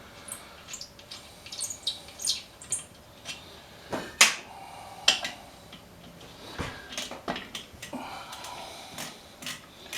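Irregular metallic clicks, clinks and light scraping of hand tools and engine parts being handled while the alternator's two bolts are taken out, with one louder knock about four seconds in.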